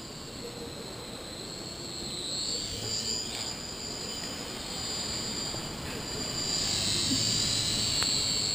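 Air Hogs mini RC helicopter's small electric motor and rotors whining at a high pitch. The pitch wavers with the throttle, and the whine grows louder in the last two seconds.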